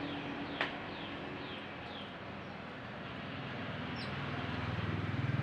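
A small bird gives short, falling high chirps about twice a second, with a single sharp click just after the start and one more chirp about four seconds in. A low engine hum runs underneath and swells near the end.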